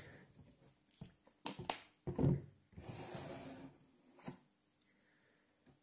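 Plastic screw cap of a Müllermilch bottle being twisted and handled: a few sharp clicks and some rustling, with a short, louder low sound about two seconds in. The cap gives no moo, so it is not a winning cap.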